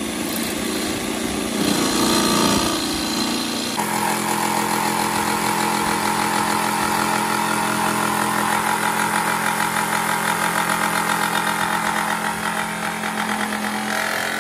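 Corded jigsaw cutting through a camper's side wall, running steadily with a fast regular chatter from the blade. Its tone changes about four seconds in.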